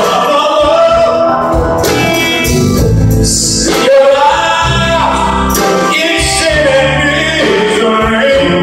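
Live rock band playing, with a male lead vocal over organ, electric guitars, bass, drums and congas, heard from the audience in a large hall.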